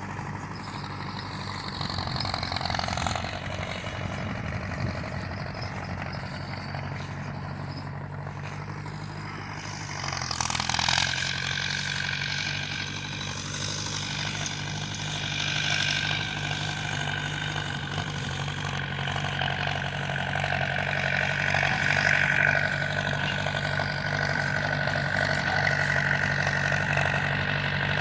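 Farm tractor engine running steadily during hay baling. About ten seconds in, the engine note shifts and a steady higher whine joins it.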